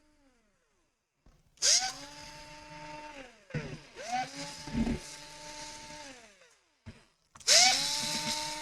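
Small electric screwdriver backing out the laptop's bottom case screws: its motor whine spins up, holds and winds down in three separate runs, the last starting near the end.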